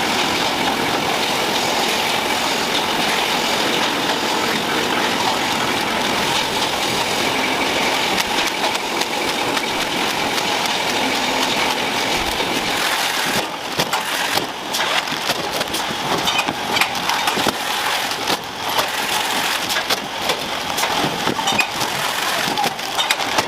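Factory production machinery running with a steady mechanical noise, giving way about halfway through to irregular clattering and clicking.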